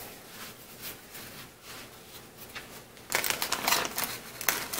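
Soft rustling of a flour tortilla being folded and rolled into a burrito on a plastic cutting board, then, about three seconds in, louder crinkling of a plastic zip-top freezer bag being handled.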